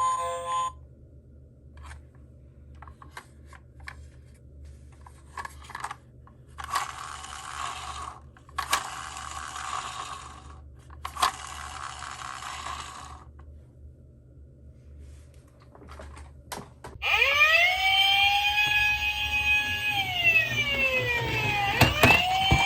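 Quiet light clicks and rattling, then about three-quarters of the way in, loud emergency-vehicle sirens start: several overlapping wails gliding up and down.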